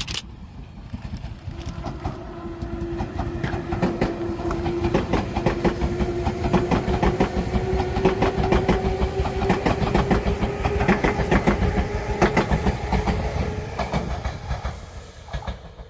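Tobu 200 series limited-express electric train passing close by: wheels clicking over rail joints in quick succession under a steady whine that rises slightly in pitch. It grows loudest as the cars go by in the middle and fades near the end.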